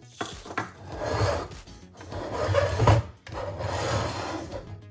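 Plastic toy bus scraping and rubbing against a tabletop as it is dragged and turned around, in three long scrapes.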